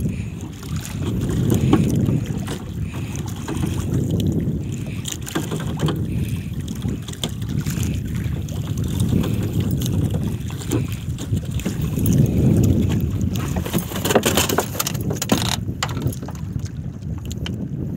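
Wind buffeting the microphone and sea water slapping against the hull of a drifting wooden outrigger boat, a rough rumble that swells and eases every couple of seconds. A run of knocks and clatter in the boat near the end.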